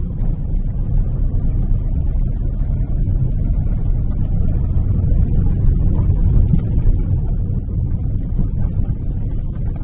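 Road and engine rumble in a moving car during a right turn, with light knocking from a worn left front ball joint, which knocks only when turning and not when driving straight.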